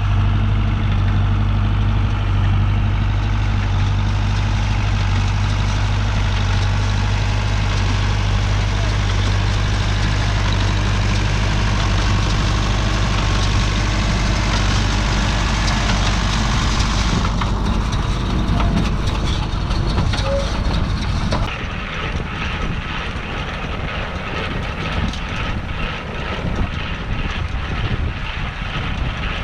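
Farm tractor engine running steadily under load, driving a New Holland 68 baler. About two-thirds of the way through it gives way to a lighter, different steady machine whir.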